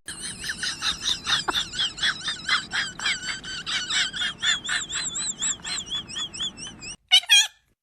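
A rapid, even series of short, high-pitched animal chirps, about four or five a second, wavering slightly in pitch, that stops abruptly about seven seconds in.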